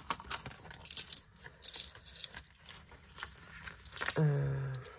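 Coins clinking and jingling as loose change is handled and sorted, in a run of small metallic clicks. A short hum, like a voice, rises over them a little after four seconds.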